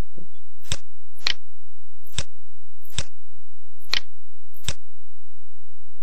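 Computer mouse clicking: about six sharp clicks at uneven intervals, over a steady low electrical hum.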